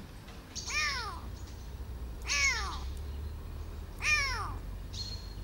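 A tiny kitten meowing: three high-pitched cries about a second and a half apart, each rising and then falling in pitch.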